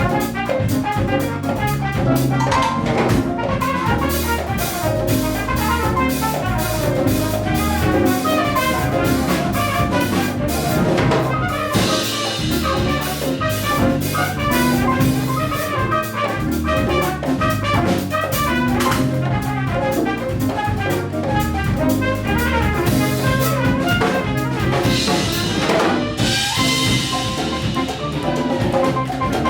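Afro-Cuban Latin jazz quintet playing live: trumpet leading over piano, bass, drum kit and hand percussion.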